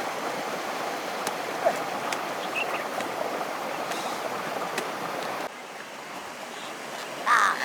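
Steady rushing noise of running water, which drops abruptly in level about five and a half seconds in. Near the end comes a short, high, pitched call.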